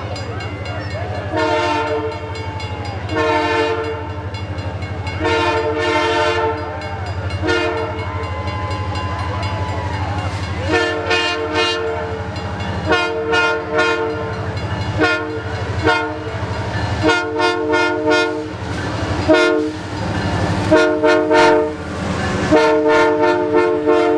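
Diesel locomotive's multi-tone air horn sounding for the level crossing as the train arrives: a few long blasts, then from about eleven seconds in a long run of short, quick blasts. A steady low rumble from the approaching locomotive runs underneath.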